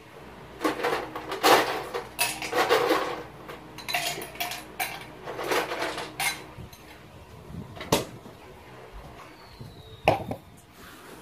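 Ice cubes clattering and clinking as they are taken from a freezer, in a series of rattling bursts over the first six seconds or so, followed by two sharp knocks.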